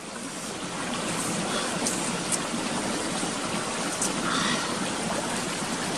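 Steady rushing of a flowing stream, with a few faint clicks.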